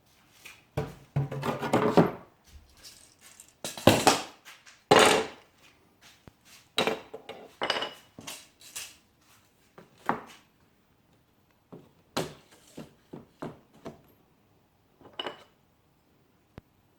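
Wooden pieces and metal hand tools being handled and set down: a string of irregular knocks and clinks, a few with a short metallic ring.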